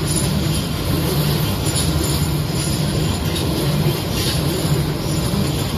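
Madrid Metro electric train running along the track: a steady, loud rumble of wheels on rail.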